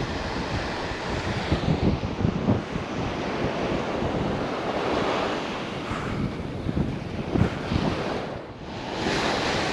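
Ocean surf washing on the beach, with strong wind buffeting the microphone in gusts; the wind drops briefly near the end.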